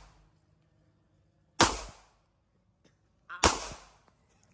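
Two pistol shots from a Smith & Wesson .40-calibre compact pistol, about two seconds apart, each a sharp crack with a short echoing tail.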